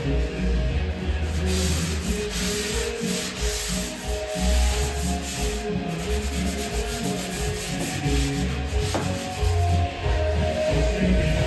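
Drywall (Sheetrock) being sanded, with a run of repeated rubbing strokes of the abrasive over the dried joint compound.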